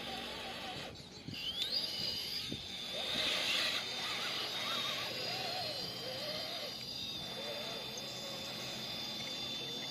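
Electric motor and gears of an RC scale crawler whining, the pitch rising and falling as the throttle changes, with a thinner high whine above it. There are a few knocks about a second in.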